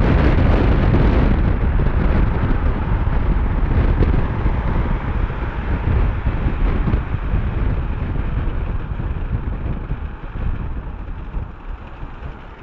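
Wind rushing through the open window of a moving car and buffeting the phone's microphone: a loud, low rushing noise that eases a little near the end.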